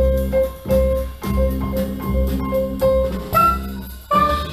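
Jazz recording played back through a pair of Lipinski Sound L707 Monitor loudspeakers, heard in the listening room, with a steady beat.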